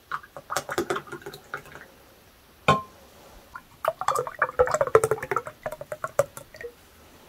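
Ayran poured from an enamel pot into glass tumblers, splashing in two spells as the glasses fill, with one sharp clink between them.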